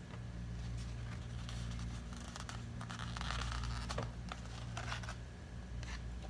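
Soft rustling of yarn and a cardboard strip being handled, the card wound with yarn, with a few faint clicks. A steady low hum runs underneath.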